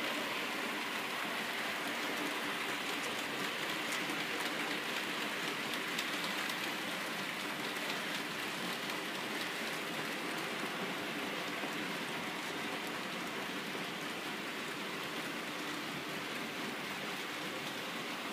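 OO gauge model goods train running past on the track: a steady rattling hiss of the wagons' wheels rolling over the rails, with a faint steady motor hum, easing a little in the second half.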